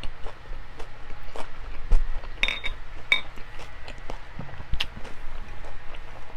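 Close-up eating sounds: chewing with repeated wet mouth clicks, and tableware clinking twice, about two and a half and three seconds in.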